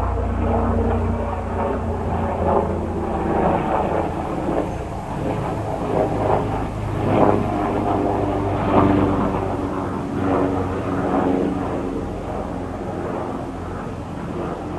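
Leonardo AW139 twin-turboshaft helicopter flying overhead: a steady low rotor thrum with a pitched hum over it, swelling and dipping in loudness, and growing fainter over the last few seconds as it moves away.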